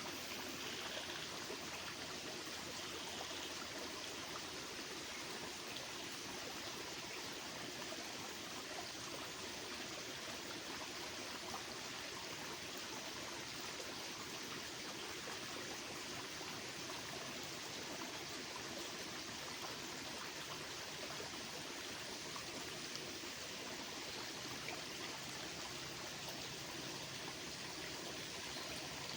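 Steady rush of running water, like a stream or water flowing through a field channel, holding even throughout.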